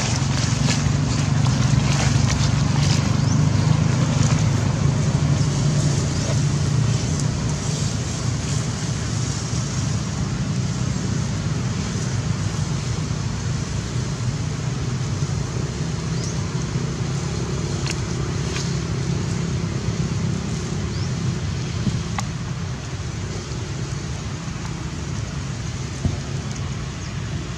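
Steady low rumble of motor traffic, with scattered faint clicks.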